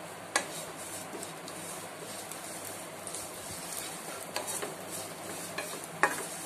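Fresh coconut slices roasting in a non-stick pan with a faint steady sizzle, and a few sharp clinks of a utensil against the pan, the loudest near the end.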